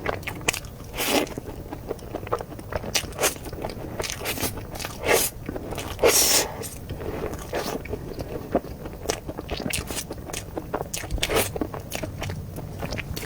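Close-miked eating sounds: a mouthful of soft durian mille crepe cake being chewed, with irregular wet mouth clicks and smacks, the loudest about six seconds in.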